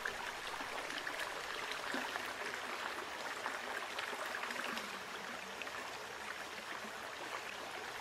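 Steady sound of flowing stream water, a soft even rush with small scattered ticks.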